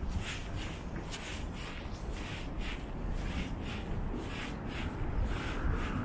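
Footsteps of a person walking on a paved sidewalk, about two steps a second, over a low steady rumble. Near the end a steadier mid-pitched sound rises in, typical of a passing vehicle.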